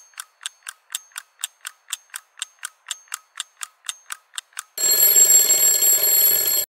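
Clock ticking about four times a second, then an alarm clock bell ringing loudly for about two seconds and cutting off suddenly.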